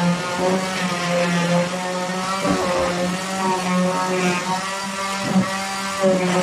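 Handheld electric sander running steadily while sanding a plywood surface, its motor hum wavering slightly and dipping briefly a few times as it is pressed and moved over the wood.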